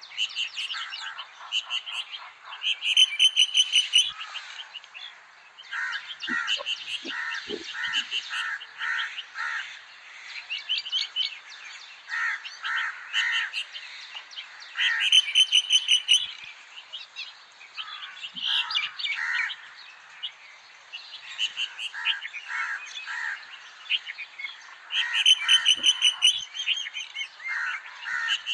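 Several birds chirping and singing together in a dense chorus of short notes and trills. About every eleven seconds a louder burst of rapid repeated notes stands out.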